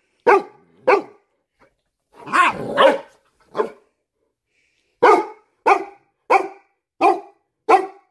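Cane Corso puppy barking at its mother in a string of short, sharp barks. The first few are irregular, then a run of five comes evenly, about two-thirds of a second apart.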